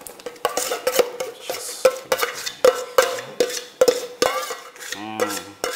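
A utensil repeatedly knocking and scraping against a bowl while the dessert's cream layer is spooned out, about two ringing clinks a second.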